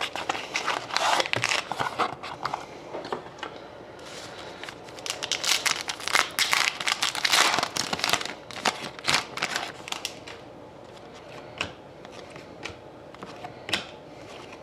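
Trading card pack wrapper crinkling and tearing as it is ripped open by hand, in two spells of rustling. A few light ticks near the end as the cards are handled.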